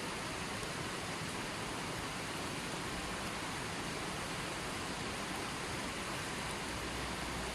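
Running water flowing steadily: an even, unbroken rushing hiss.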